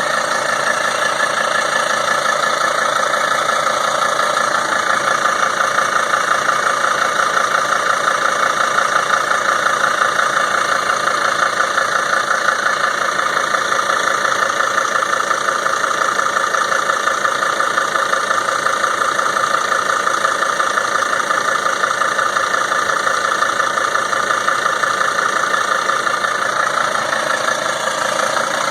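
Mercedes Sprinter van engine running steadily at idle with a rapid, even knocking and ticking. The owner finds the knocking and ticking louder than normal but does not know the cause.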